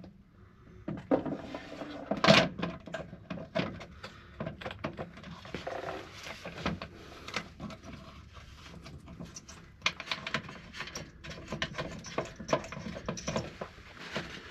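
Plastic fuel filter housing of a Ford 6.7L Powerstroke being handled and pushed up into its mount under the truck: an irregular run of clicks, knocks and rattles, the loudest knock about two seconds in.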